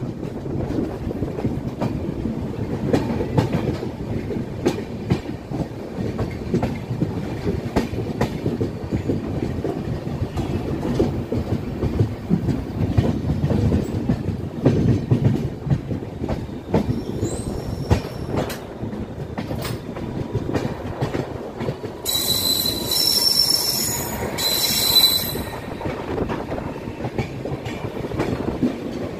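Passenger coaches of a departing train rolling past, the wheels running and clicking over rail joints. A loud, high-pitched wheel squeal comes in about 22 seconds in and lasts about three seconds.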